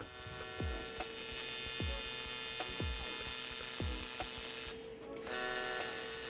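Steady electric buzz and hiss of a TIG welding arc, cutting out briefly near the end and then striking again. A faint music beat thumps about once a second underneath.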